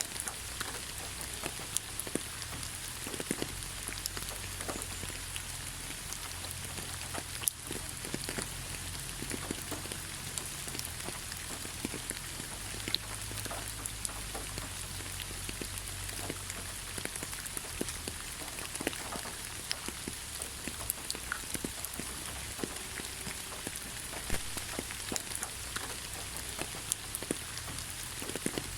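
Steady rainfall, with many separate drops striking a surface as sharp ticks over an even hiss and a low rumble underneath.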